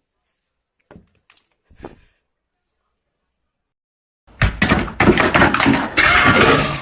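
A few faint knocks, then from about four seconds in a loud clatter of many knocks and bangs in quick succession.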